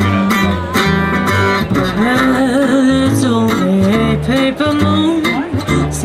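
Acoustic guitar music with singing.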